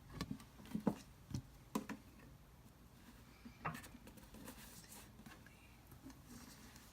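A few light, sharp knocks and clicks of slime-making supplies being handled: a quick cluster of about five in the first two seconds, then one more a little past the middle.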